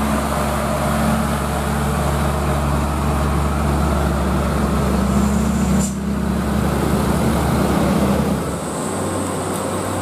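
Mitsubishi Fuso box truck's diesel engine running steadily as it pulls up a steep hill, loud as it passes close by. The engine note fades away near the end.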